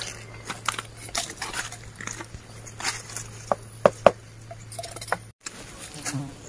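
Knife clicking and scraping on a short length of green bamboo as it is trimmed, in short irregular strokes, over a steady low hum.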